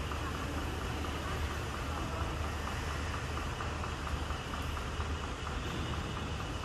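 Motor vehicle running steadily: an even low hum with a constant wash of road noise.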